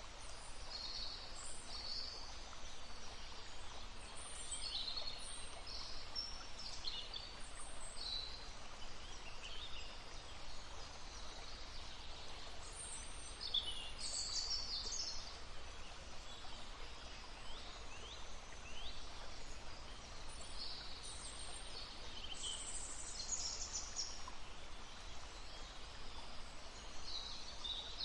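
Small birds chirping and singing in short, high phrases throughout, over the steady murmur of a flowing stream.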